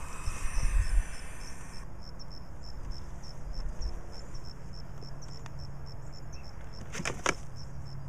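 Crickets chirping steadily in a regular high-pitched pulse. Over the first couple of seconds there are low bumps and a rustle from a cardboard box being handled, and two sharp knocks come about seven seconds in.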